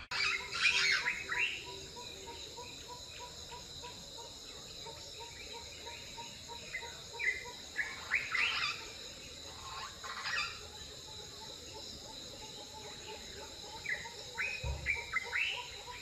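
Tropical outdoor ambience: birds chirping in short, scattered phrases over a steady high-pitched insect drone, with a soft note repeated a few times a second underneath. A brief low thud comes near the end.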